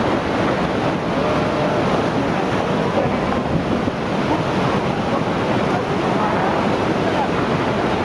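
Floodwater rushing past in a steady, loud wash of noise.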